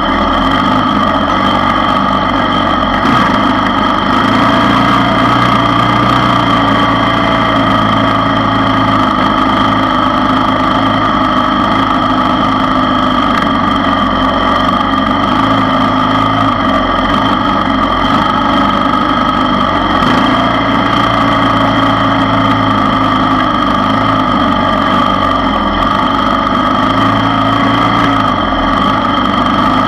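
ATV engine running steadily at slow trail speed, heard close up from the machine, its pitch staying nearly even throughout.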